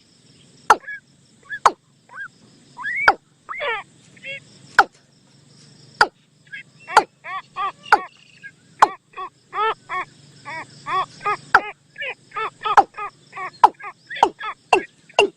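Bird lure-call recording of the bird called nok toom in Thai: short, arched, nasal-sounding calls repeated in quick runs, with sharp clicks between them over a faint steady hum.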